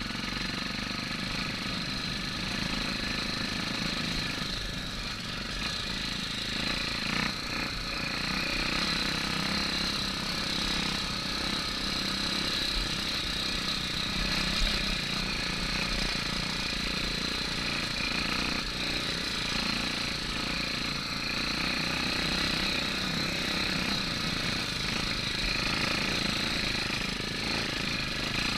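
Trail motorcycle's single-cylinder four-stroke engine, a Honda XR250 Tornado engine bored out to about 300cc, running steadily at low speed as the bike rides along a dirt track, heard from on board.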